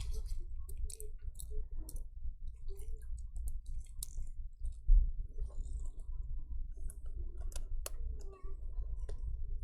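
Small, scattered clicks and taps of plastic laptop parts being handled while the broken power-button mounting is glued back in place, with one duller knock about five seconds in.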